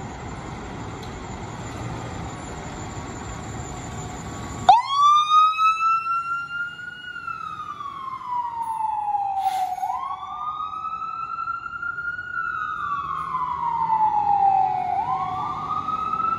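Fire engine's engine running with a steady rumble, cut off abruptly about five seconds in by its siren. The siren wails in slow rising and falling sweeps, about five seconds each.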